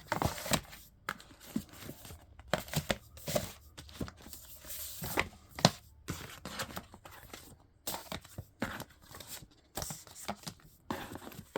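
Cardboard and paper of a vinyl record box set being handled: irregular rustling and sliding with many light knocks and taps.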